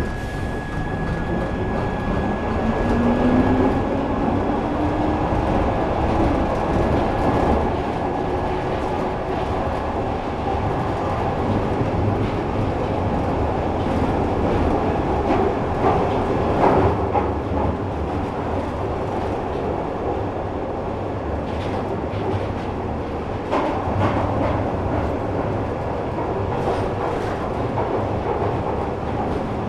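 Glasgow Subway train pulling away, its motor whine rising in pitch over the first few seconds, then running steadily through the tunnel with a dense rumble of wheels on rails and clicks over rail joints, clustered around the middle and later on.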